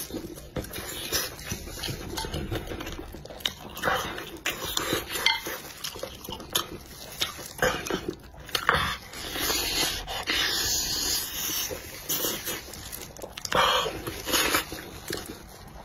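Close-miked chewing of soft, sauce-soaked meat, with irregular wet smacks and clicks from the mouth and squelching as gloved hands tear the food.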